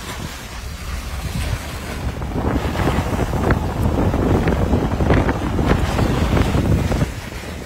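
Wind rushing and buffeting against the microphone of a moving car, over a steady low road rumble. It grows louder about two seconds in and drops back about seven seconds in.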